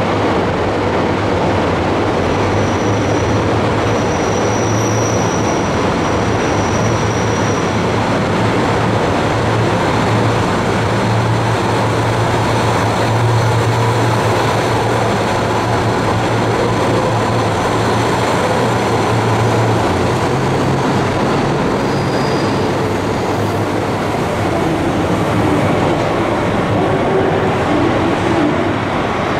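KiHa 183-5200 series diesel railcar train running past and pulling away from the platform, its engines giving a steady low drone that eases after about twenty seconds. A faint high wheel squeal comes a few seconds in.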